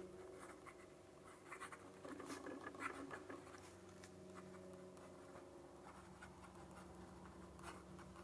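Faint scratching of a Majohn A2 fountain pen's nib writing on Fabriano Ecoqua paper: short, uneven strokes, a little louder and busier between about one and a half and three seconds in.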